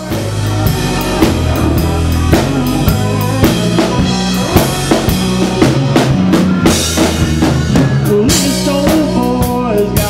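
A band playing up-tempo music: a drum kit keeping a steady beat of about two hits a second under acoustic and electric guitars.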